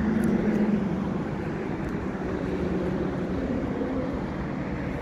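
Steady low engine hum with a rush of noise over it, swelling briefly at the start and then holding even.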